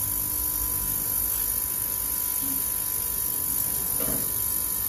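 Steady electrical mains hum with a faint buzz and a high hiss from an ultrasonic cleaner that is switched on, with a carburettor in its tank.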